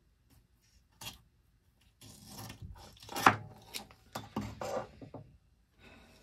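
Blue painter's tape being pulled off the roll, cut with a razor blade and pressed down by hand: a short click about a second in, then a few seconds of rasping and rubbing with one sharp snap partway through.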